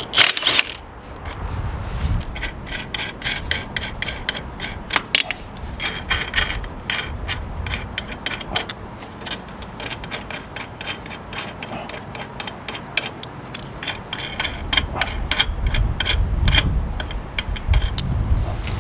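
Hand tools working on a mower wheel's lug nuts during a tire change: repeated sharp metallic clicks and rattles, irregular, with short quick runs of clicking and some low rumbling mixed in.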